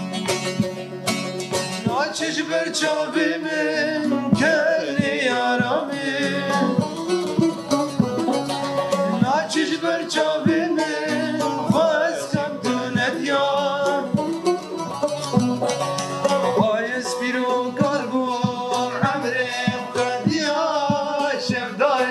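Kurdish song played on a banjo and a long-necked saz (bağlama), both plucked, with male voices singing over them from about two seconds in.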